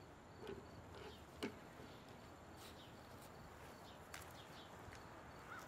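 Near silence: faint outdoor ambience with a few soft clicks and a small knock about a second and a half in. A few faint, quick bird chirps come in near the end.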